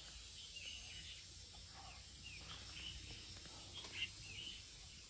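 Faint outdoor ambience with a few soft, scattered bird chirps.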